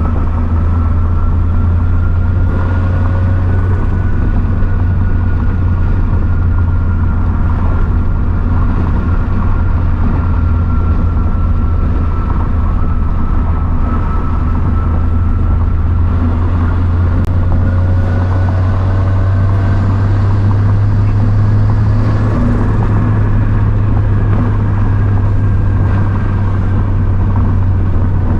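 Turbocharged Scion FR-S's flat-four engine heard from inside the cabin while cruising in a high gear at light throttle: a steady low drone with road noise, and a thin high whine that drifts slowly up and down in pitch.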